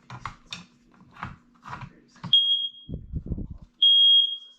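Smoke alarm going off, sounding high-pitched beeps of about half a second each: one a little past halfway, then two close together near the end, as the alarm responds to test smoke. Before the beeps comes a run of short knocks and handling noise.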